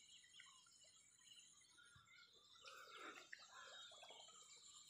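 Very faint outdoor ambience: birds chirping here and there over a steady high-pitched whine, busier for a moment around three seconds in.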